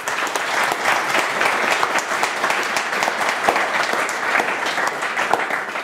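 Audience applauding, a dense steady clapping of many hands, beginning to die down near the end.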